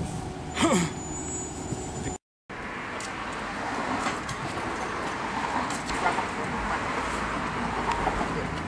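Outdoor street traffic noise, a steady haze of passing cars. Under a second in, a short louder sound slides down in pitch. Shortly after two seconds the sound cuts out briefly, then the traffic haze resumes.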